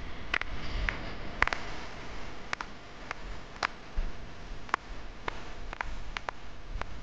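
Scattered sharp clicks and ticks, about a dozen at irregular intervals, over a low rumble.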